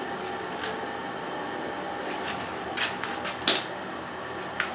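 A few sharp metal clicks and knocks from handling a Hardinge toolroom lathe's controls, the loudest about three and a half seconds in, over a steady machine hum.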